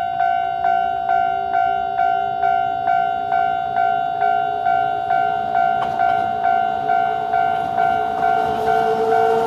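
Japanese railway level-crossing warning bell ringing in an even, steady pattern about twice a second, as a Sangi Railway electric train approaches; the train's own sound grows toward the end.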